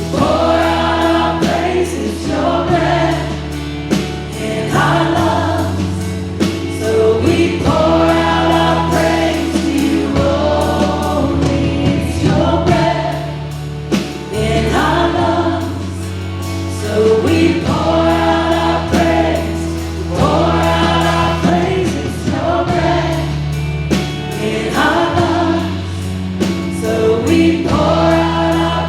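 Live church worship band and singers performing a contemporary worship song, sung phrases over held bass and keyboard chords that change every few seconds.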